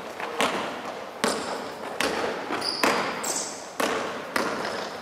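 Basketball being dribbled on a hardwood gym floor: about six sharp bounces, each under a second apart and echoing in the large hall. Short high sneaker squeaks on the floor between the bounces.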